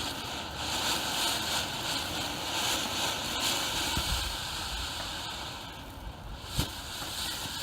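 Ground firework fountain spraying sparks with a steady hiss. The hiss fades out about six seconds in, and a single sharp pop follows.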